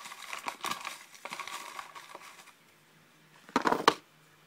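Hand rummaging through folded paper slips in a clear plastic tub: a crinkly rustle of many small clicks and scrapes. After a short lull, a slip is pulled out and unfolded with a brief loud crackle near the end.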